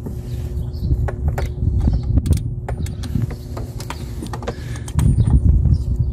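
Wrench on a long handle working a belt tensioner's mounting bolt loose: scattered metallic clicks, creaks and scrapes of the tool on the bolt, with louder rumbling handling noise about five seconds in.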